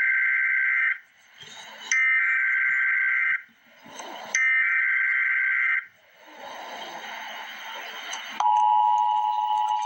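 Emergency Alert System tones: three buzzing bursts of SAME header data, each about a second and a half long with short gaps of hiss between them, which encode the coming flood advisory. A stretch of hiss follows, then about eight seconds in the steady two-tone EAS attention signal starts.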